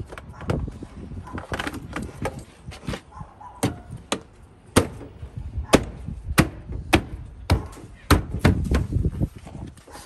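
A run of sharp knocks and snaps as a Chevy Silverado's plastic interior door panel is pressed and struck by hand to seat its retaining clips into the door, coming roughly every half second to second and busiest in the second half.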